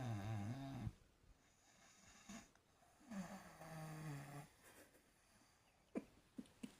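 Snoring: two long, pitched snores about three seconds apart, each lasting more than a second, then three short clicks near the end.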